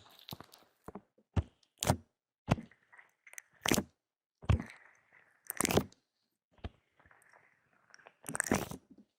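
Close-miked crunching of crisp food being bitten and chewed, in separate loud crunches about once a second with short pauses between.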